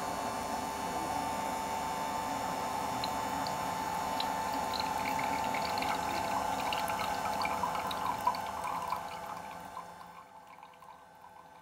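JUlaVIE cold press juicer running with a steady hum as it presses the fruit, while juice trickles and drips from its spout into a glass. Small dripping ticks join in a few seconds in, and the sound dies away about nine seconds in as the press finishes.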